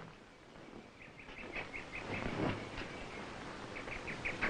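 A small bird chirping in two quick runs of short, evenly spaced notes, about five a second, over faint outdoor background noise.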